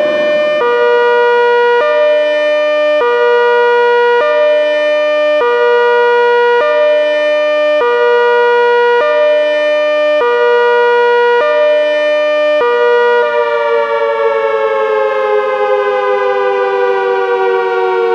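Synthesized ACA Hurricane 130 dual-tone siren sounding the Fire (Hi-Lo) signal: it alternates between a high and a low pitch about every 1.2 seconds. About two-thirds of the way through the switching stops and the tone slides slowly down in pitch as the siren winds down.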